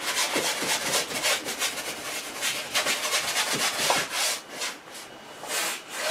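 Wide flat bristle brush scrubbing oil paint across a stretched canvas: a quick series of short, hissing rubbing strokes, turning into longer sweeps in the second half.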